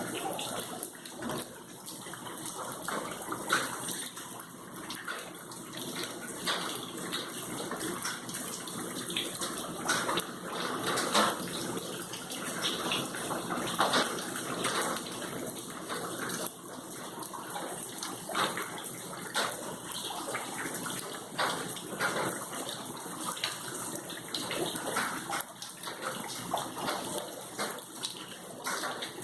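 Water running and splashing steadily, with an uneven, fluctuating level.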